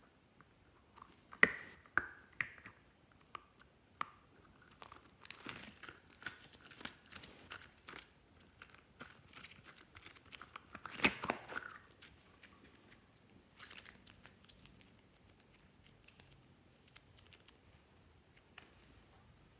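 Glossy slime being worked by hand, giving irregular sticky clicks, pops and crackles, loudest about one and a half seconds in and again around eleven seconds.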